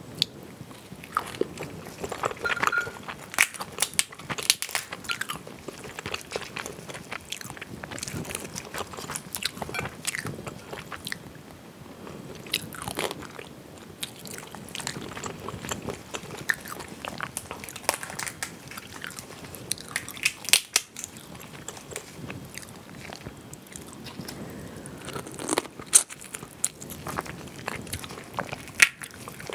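Close-miked eating of mala spicy crayfish: shells cracking and snapping apart by hand, with biting and chewing. Irregular sharp cracks throughout, the loudest two near the end.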